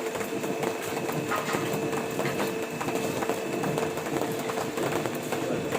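Portable line boring machine running steadily, its boring bar turning and cutting in an excavator bucket's pin bore, with a constant motor hum and a dense metallic chatter.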